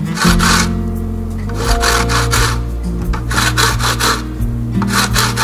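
A whole lemon scraped back and forth across a fine stainless-steel grater, zesting the peel: a series of rasping strokes, about one a second.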